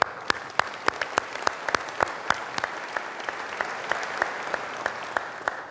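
Audience applauding, with one nearby pair of hands standing out in an even beat of about three claps a second.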